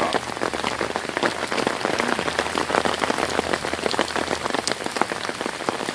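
Heavy thunderstorm rain falling close to the phone's microphone: a steady hiss crowded with many sharp drop hits.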